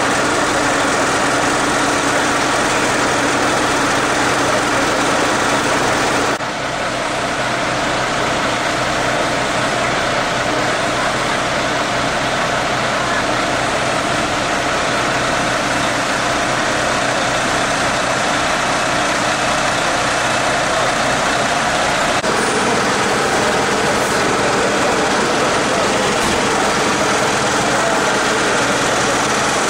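Fire-service machinery running steadily at the fire scene: a loud, constant mechanical drone with a steady hum, shifting slightly about six seconds in and again a little past twenty seconds.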